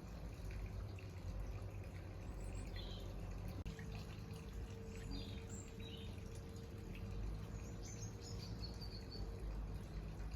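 Steady low background hum with a faint steady tone, broken by a few brief, faint high chirps.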